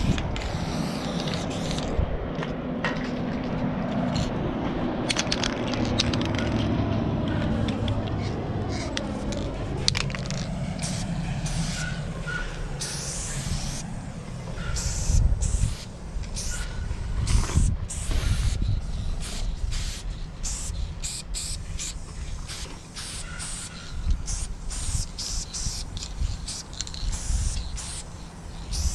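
Aerosol spray-paint cans hissing against the metal side of a truck, in many short bursts from about ten seconds in. A low rumble sits under the first part.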